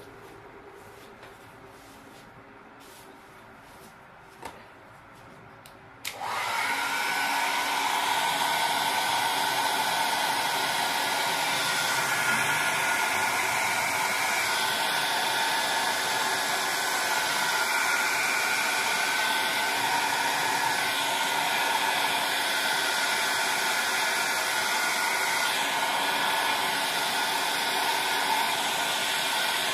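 A small hair dryer switched on about six seconds in, then running steadily with an even whine.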